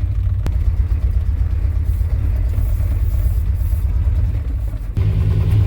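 The engine of a 1988 Chevy K2500 pickup, carbureted with a rebuilt Edelbrock 650, running rough with a miss. It gets louder about five seconds in. The owner suspects contaminants have clogged the carburetor jets.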